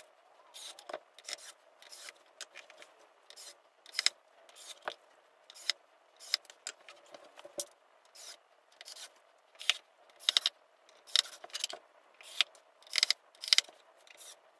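Screws being driven into a dresser's drawer panel with a screwdriver: short, irregular scratchy strokes and clicks, sometimes several in quick succession.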